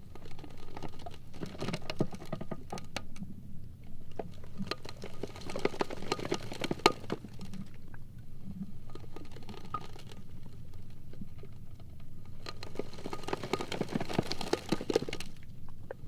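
Sea ice floes grinding and rubbing against each other: dense crackling and squeaky clicking that swells three times over a low rumble, with one sharp crack about seven seconds in.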